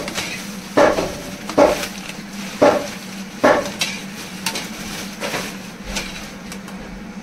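A metal utensil knocks and scrapes against a cooking pan about once a second while phulauri fritters fry in oil, with a faint sizzle and a steady low hum underneath. The knocks grow weaker in the second half.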